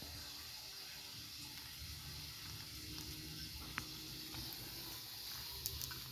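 Faint steady hiss with a few soft ticks of Brahma chickens pecking at dry dirt, one about four seconds in and a pair near the end.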